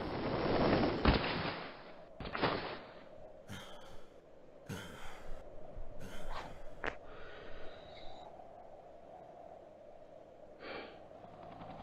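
Animated fight sound effects: a noisy rush with a sharp hit as a punch lands, then a fighter's ragged, gasping breaths, a few seconds apart.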